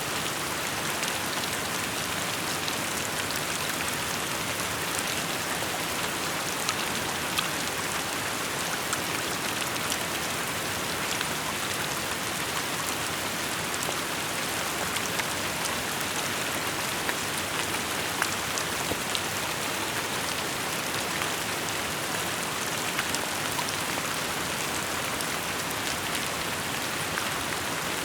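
Steady rainfall: an even hiss of rain with scattered individual drop ticks.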